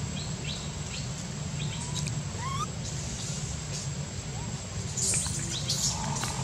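Short rising animal chirps, a few seconds apart, over a steady low hum, with a burst of rustling and clicks about five seconds in.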